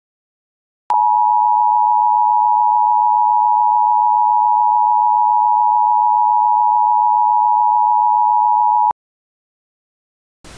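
Emergency Alert System attention tone: one steady, loud, high tone that starts about a second in, holds for about eight seconds and cuts off sharply. A hiss begins near the end.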